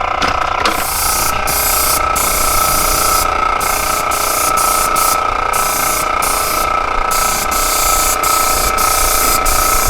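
Paint spraying in repeated bursts: a loud hiss that stops briefly a dozen or so times at irregular intervals as the gun trigger is released, over a steady high-pitched whine.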